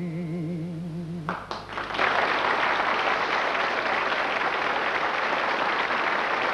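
The song's last held note, wavering with vibrato, stops about a second in. A live audience then breaks into applause, which goes on steadily from about two seconds in.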